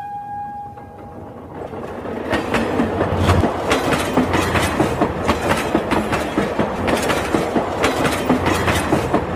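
Toy steam locomotive's train sound: a whistle-like tone fades out about a second in, then a fast, steady clickety-clack rattle sets in about two seconds in and runs on.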